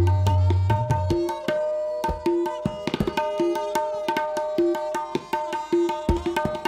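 Tabla playing: deep bayan bass strokes that swell and glide up in pitch through the first second, then fast ringing strokes on the tuned dayan, with the bayan's bass coming back near the end.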